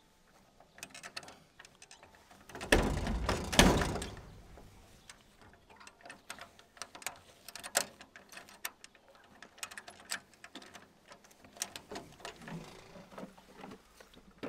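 Latch and lever handle of a steel garden gate being worked by hand: repeated metallic clicks and rattles, with one louder rattle lasting about a second roughly three seconds in.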